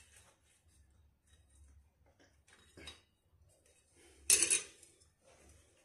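Locking pliers gripping and twisting an old toilet-flange bolt in the floor, with faint metal scraping. A brief click comes nearly three seconds in, and a sharp metallic clank about four seconds in.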